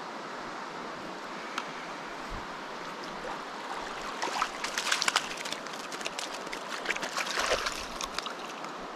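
Steady rush of river water, with a hooked trout splashing at the surface in a cluster of sharp splashes from about four seconds in, loudest near the middle, as it is brought to the net.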